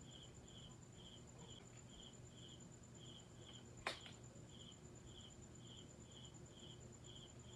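Faint cricket chirping, evenly about two chirps a second, with a single sharp click about four seconds in.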